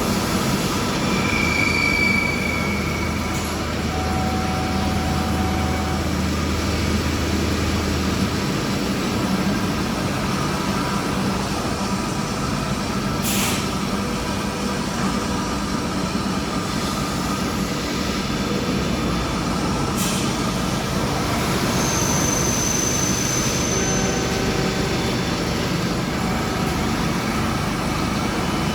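Steady workshop noise of metal-cutting machines running: CNC and sliding-head automatic lathes. A low hum fades out about eight seconds in, and short whines come and go. There are two sharp clicks, about 13 and 20 seconds in.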